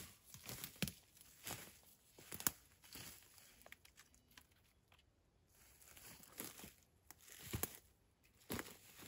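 Irregular crunching and rustling with sharp snaps, as sticks and branches are handled and broken, the loudest crack about two and a half seconds in.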